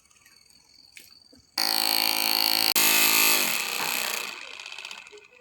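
Small electric motor of a homemade drilling machine switched on with a sudden buzzing whine, then slowing down with a falling pitch as it spins down and fades. A few faint clicks come before it starts.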